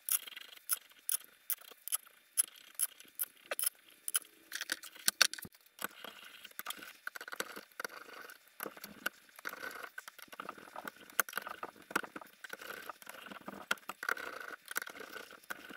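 Steel head bolts clinking as they are dropped into and handled on the cylinder head of a Rotax two-stroke twin, then a socket ratchet clicking as the bolts are run down, starting about six seconds in. Faint, separate sharp clicks at first, then denser, quicker clicking.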